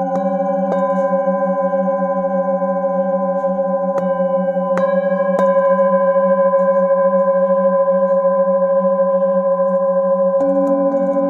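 Several metal singing bowls ringing together in a layered, sustained hum, the low tone wavering. A padded mallet strikes them softly a handful of times, near the start, around four to five seconds in and again near the end, each strike adding a fresh bell-like tone over the drone.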